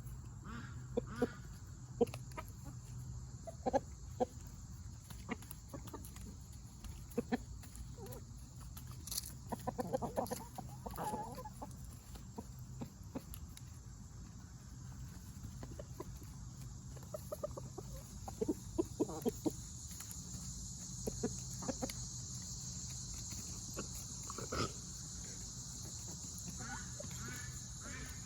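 Backyard chickens clucking while feeding on apples: short, scattered clucks and soft calls, some in quick runs, over a steady high hiss that grows louder in the second half.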